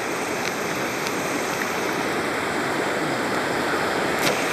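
River rapids rushing steadily, the churning whitewater of a fast jungle river.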